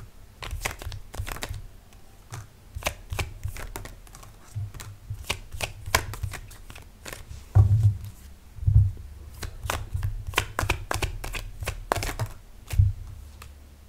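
A deck of tarot cards being shuffled by hand, with many quick, irregular snaps and clicks of card edges. There are a few dull thumps around the middle and near the end.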